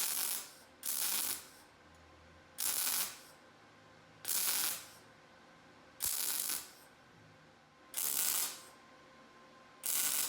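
Short bursts of welding-arc crackle on 14-gauge sheet steel: seven stitch welds of about half a second each, one every second and a half or so.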